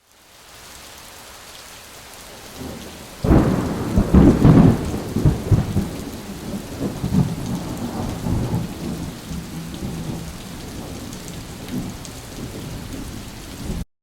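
Thunderstorm: steady rain hissing, then a loud clap of thunder about three seconds in that rumbles on and slowly dies away under the rain before cutting off abruptly near the end.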